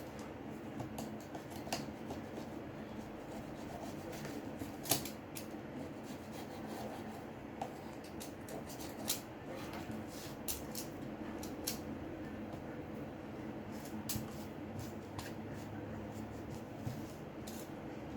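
Scattered small sharp clicks and ticks of hand tools working on a smartphone's parts, the loudest about five seconds in, over a steady low hum.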